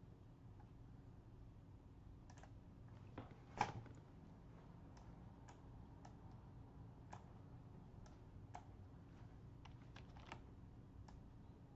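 Sparse, irregular clicks of a computer mouse and keyboard over a faint steady hum, one click noticeably louder a little over a third of the way in.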